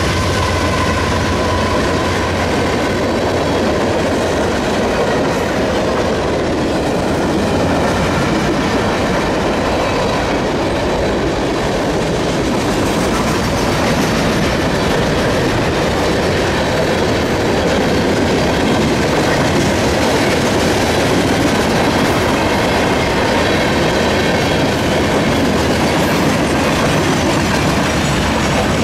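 Freight train cars rolling past: a steady, loud rumble and clatter of steel wheels on the rails.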